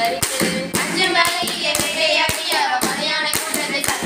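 Girls singing a Tamil kummi folk song together, with sharp hand claps keeping the beat about twice a second.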